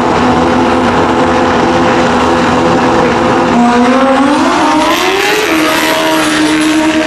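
Pro Xtreme drag bike engine held at steady revs on the start line, then launching about three and a half seconds in: the pitch climbs, drops back once and climbs again, with a high whistle rising over it.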